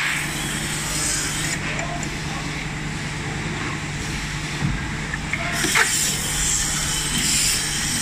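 Automatic polishing machine for melamine handle trays running: a steady motor hum under an even grinding and extraction noise. There is a short squeak about six seconds in.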